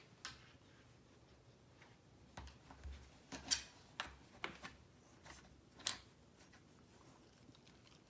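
Scattered short scratchy rustles and clicks of a hand rubbing a long-haired dog's thick fur, with the fur brushing right against the microphone. They bunch in the middle, the loudest about three and a half seconds in and a second near six seconds in.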